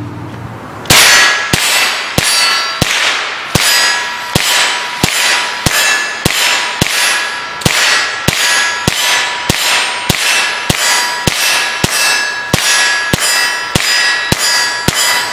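A GSG MP40 in .22 LR firing shot after shot at a steady pace, about two dozen rounds, starting about a second in. Each crack is followed by a ringing clang, typical of a hit on a steel target.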